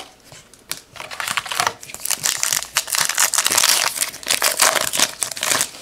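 A trading-card pack wrapper crinkling as it is handled and torn open, with sharp crackles, loudest through the middle and latter part.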